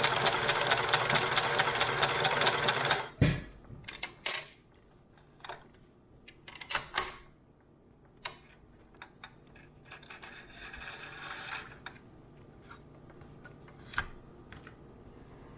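Sewing machine stitching at a fast, even rate, stopping with a thump about three seconds in. Scattered clicks and handling noises follow, with a brief, quieter stretch of noise about ten seconds in.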